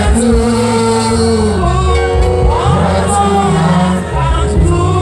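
Gospel worship song: voices singing long held notes over instrumental accompaniment with a steady bass.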